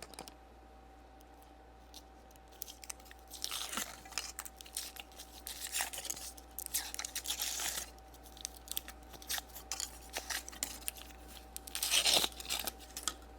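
Foil wrapper of a Kinder Surprise chocolate egg being torn and crinkled off by hand, in irregular crackles with a louder burst near the end.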